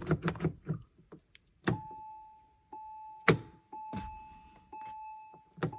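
A car's electronic warning chime repeats steady single tones about once a second, with sharp clicks from the rotary headlight switch being turned between the positions.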